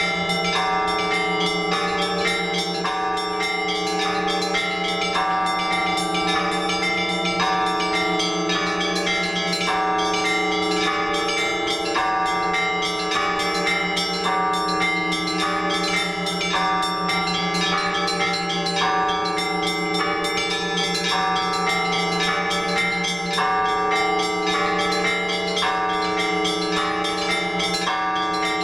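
Orthodox church bells rung together by hand in a festal trezvon: many bells sounding at once, higher bells in quick strokes over deeper sustained bells, in a rhythmic phrase that repeats about every second and a half.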